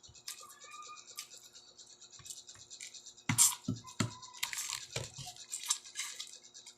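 Close-up eating sounds: crisp crunching and chewing of fried dried fish (tuyo) with its bones, with a sharp clack about halfway through and a few lighter knocks after it.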